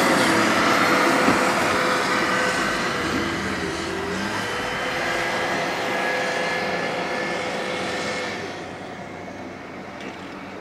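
Caterpillar 930H wheel loader's diesel engine running with a steady hum and whine as the machine drives by. The sound eases off and drops away about eight seconds in.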